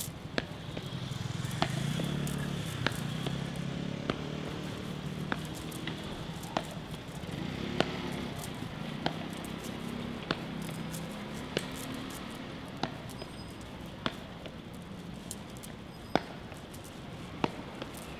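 Slow, evenly paced footsteps, a sharp shoe click on hard ground about every 1.2 seconds, over a steady low city rumble.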